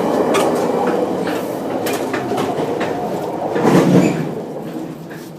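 Rumble and rattle of a moving passenger train heard from inside a car, with scattered sharp clicks from the wheels and fittings. The noise grows louder for a moment about four seconds in, then fades.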